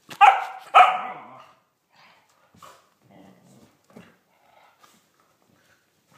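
Polish Lowland Sheepdog giving two loud barks about half a second apart as the dogs play-fight, followed by faint scuffling.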